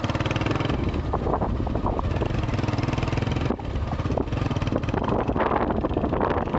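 Honda CB125 motorcycle engine running steadily under way, with fast even firing pulses. About three and a half seconds in, the sound briefly dips and turns rougher and noisier.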